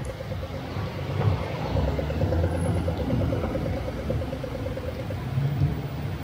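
Pedestrian crossing signal giving its rapid walk-phase ticking, which stops about five seconds in. Underneath is a low rumble of city traffic and rain.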